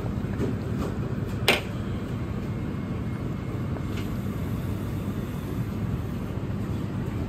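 Steady low rumble of restaurant kitchen equipment, with one sharp click about a second and a half in and a fainter one a few seconds later.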